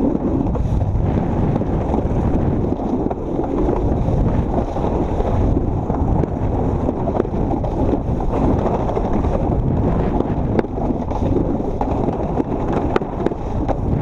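Alpine slide sled running down its track: a steady rolling rumble mixed with wind buffeting the microphone, with a few small clicks along the way.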